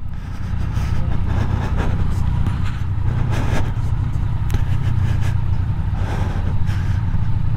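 Yamaha MT-09 three-cylinder motorcycle engine running steadily at low speed while riding slowly over rough, uneven ground, with faint knocks here and there from the bumps.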